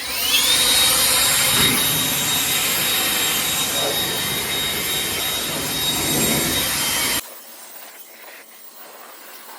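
Blower starting up with a rising whine, then running steadily with a loud rush of air. It stops abruptly about seven seconds in.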